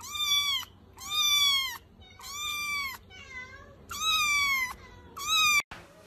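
Young kitten meowing repeatedly: about six high-pitched meows in quick succession, each rising and then falling in pitch, one of them much fainter than the rest.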